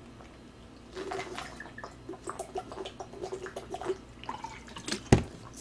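A man drinking from a plastic water bottle in gulps, with water gurgling in the bottle and small wet clicks of swallowing. A single sharp knock comes near the end.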